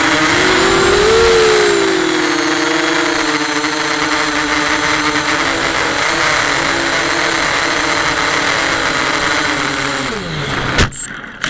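FPV racing drone's electric motors and propellers whining, the pitch rising and falling with throttle as it flies. Near the end the whine falls away and two sharp knocks follow as the drone crashes into the ground.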